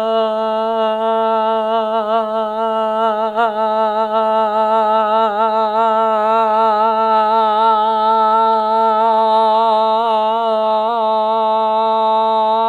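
A voice holding one long, steady note, wavering slightly in places.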